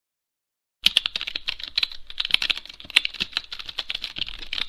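Fast typing on a keyboard: a dense, uneven run of sharp clicks that starts abruptly about a second in.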